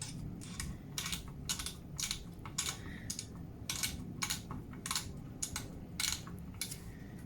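Screwdriver tightening CPU cooler mounting screws: a run of short, sharp, irregular clicks, about two to three a second.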